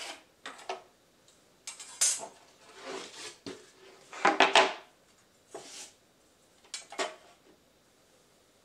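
A steel framing square and a synthetic decking board being handled on a tile floor: a series of short metal clinks and scrapes, some with a brief ring, the loudest about four seconds in.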